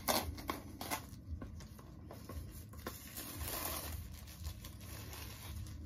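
Packaging of a heavy box set being worked open at one corner by hand: a few light taps and scrapes, then a longer rustling tear about three seconds in.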